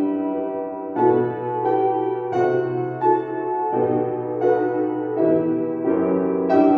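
Solo instrumental performance on a keyboard instrument, playing a melody over sustained chords, with new notes entering about every half second to a second.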